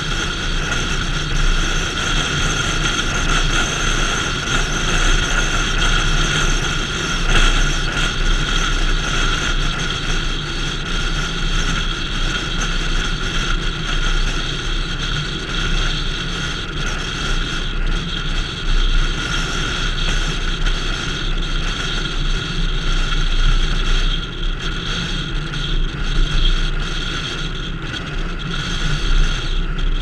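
A car driving at steady speed: continuous road and engine noise with a low rumble and a faint steady whine, picked up by an onboard camera.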